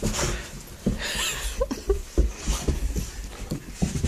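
Excited Boxer dog scrambling about a hallway: its paws thud on the floor over and over, with huffing breaths and a few brief squeaks about a second and a half in.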